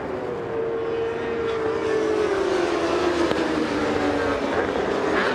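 A pack of 1000 cc superbikes racing past at high revs, several engine notes overlapping and sliding down in pitch while the sound grows louder.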